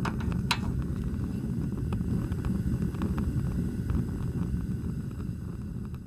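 Fire sound effect for an animated logo: a low rumbling roar of flames with scattered crackles and a sharper crack about half a second in, fading out at the end.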